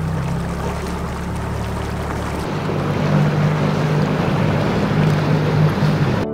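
A small motorboat's engine running at a steady note under way, with rushing water and wind on the microphone. About two and a half seconds in, the engine sound changes: the deepest hum drops away and a higher drone comes forward.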